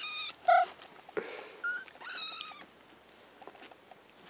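Four-week-old kittens mewing: a high-pitched mew right at the start and another just after two seconds, with a few short chirps between. The kittens are hungry and calling for their feed.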